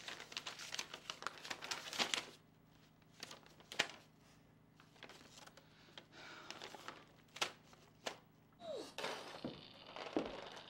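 Paper sheets and envelopes rustling and crinkling as they are leafed through by hand, dense for about the first two seconds. After that it is quieter, with a few scattered sharp clicks and taps.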